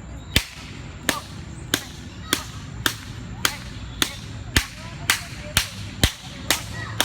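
A regular series of about a dozen sharp cracks, a little over half a second apart and coming slightly faster near the end, each with a short ringing tail.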